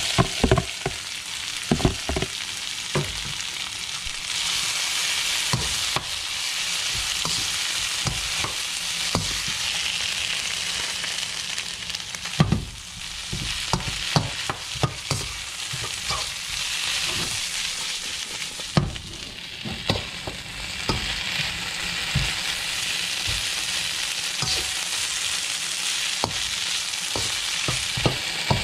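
Stir-fry of beef, peppers, carrots and ramen noodles sizzling steadily in a hot wok, with frequent short knocks and scrapes of a metal utensil against the pan as it is stirred and tossed.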